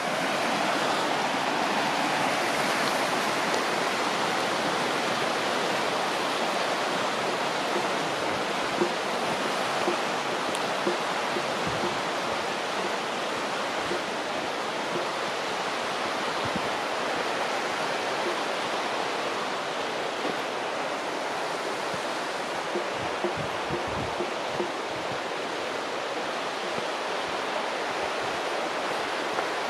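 Steady rushing of the Little Firehole River, with a few soft low bumps.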